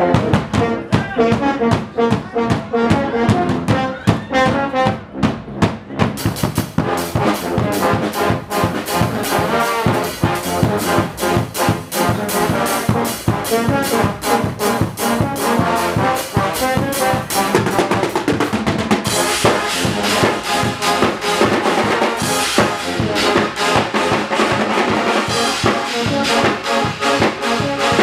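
Guggenmusik carnival band playing: trombones, trumpets and sousaphone with snare and bass drums. The drums beat in steadily about six seconds in, and the sound grows brighter and fuller about two-thirds of the way through.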